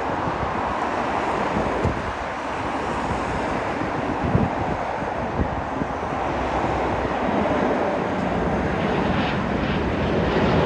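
Airbus A319's CFM56 turbofan jet engines running, a steady broad rumble that grows slightly louder near the end, with wind buffeting the microphone.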